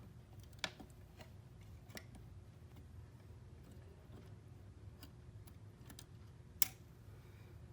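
Sparse small clicks and taps from handling the doorbell chime's wire connector as it is worked loose, with one sharper click near the end.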